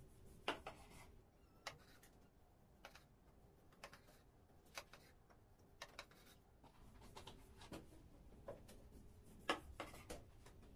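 A kitchen knife slicing through a log of soft dough, the blade tapping the wooden table with each cut, about one faint tap a second.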